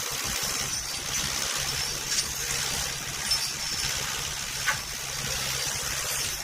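John Deere 440 engine running steadily under a steady hiss, with two short sharp sounds about two seconds and four and a half seconds in.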